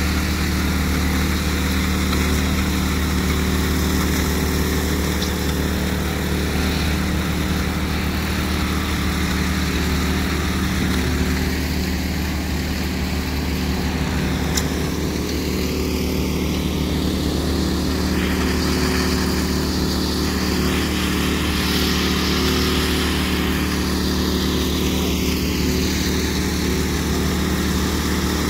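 Several walk-behind power trowels (concrete 'helicopters') running together, their small engines giving a steady drone as the rotating blades float a fresh concrete slab.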